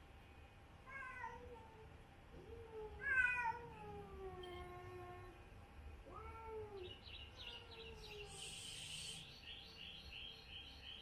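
Cats meowing and yowling in a tense standoff: a short call about a second in, then a long drawn-out yowl falling in pitch, the loudest sound, and another shorter call about six seconds in. Warning yowls between cats facing each other off.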